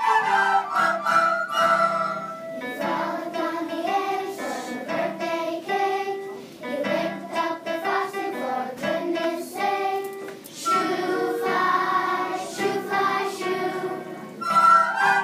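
A class of young children singing a song in unison, accompanied by an electric keyboard. Recorders join in at the start and again near the end.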